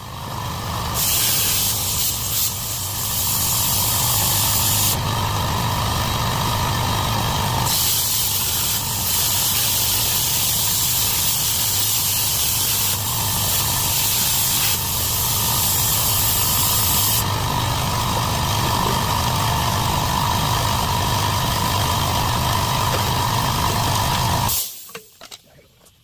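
A power cutting tool cutting through a car's steel frame: a loud, steady hissing noise that cuts off suddenly about a second and a half before the end.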